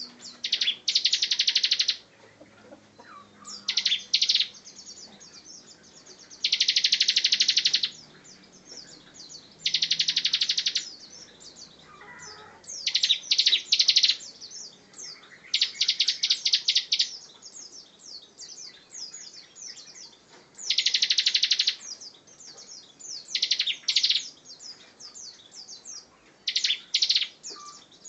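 A ciblek (prinia) songbird in full song, giving repeated fast, buzzy rattling trills (the 'ngebren' song bird-keepers prize), each about a second long, with short high chirps between them.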